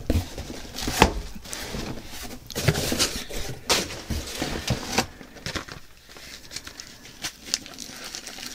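Cardboard and packaging being handled inside a shipping box: rustling and scraping with several sharp knocks and taps, the loudest about a second in and again around four and five seconds in, then lighter clicks toward the end.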